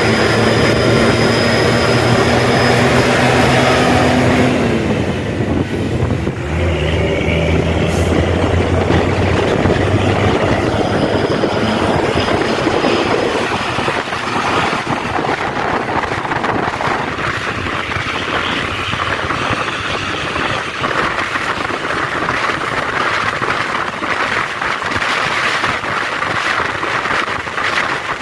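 Bus traffic at speed: a heavy diesel engine drone that fades about four to five seconds in and returns briefly from about six to ten seconds in. After that, steady road and wind noise.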